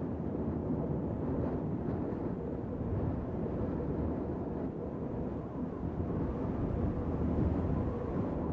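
Wind blowing steadily, a low, even rumble with no distinct tones.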